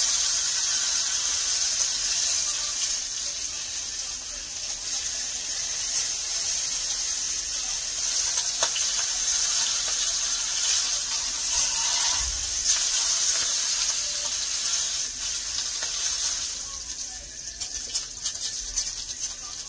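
Hot oil and rendered beef fat sizzling steadily in a cast iron skillet. The sizzle eases about three-quarters of the way through, leaving scattered pops and crackles near the end.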